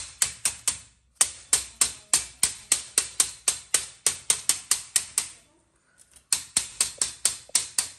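Rubber mallet tapping rapidly along a metal screen frame, about four sharp knocks a second, with two short pauses. It is driving the rubber spline into the frame's channel and closing the frame's lip so it grips the thin dust-screen mesh tight.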